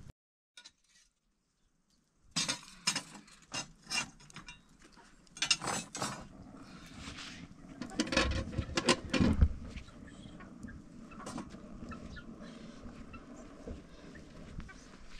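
A series of sharp knocks and clatters in clusters, starting after about two seconds of silence.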